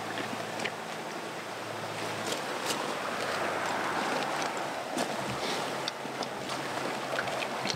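Steady rush of a nearby stream, with scattered light clicks from gear being handled in a bag.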